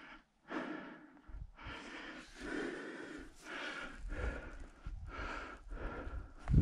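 A hiker breathing hard and fast, close to the camera microphone, in quick breaths about every three-quarters of a second. A low rumble joins in from about four seconds in.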